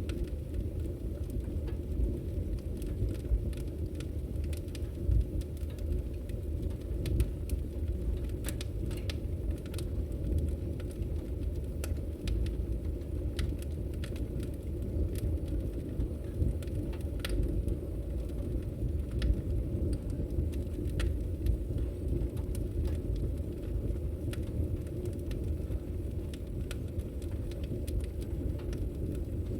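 Wood fire burning in a fireplace: a steady low rumble with frequent, irregular sharp crackles and pops.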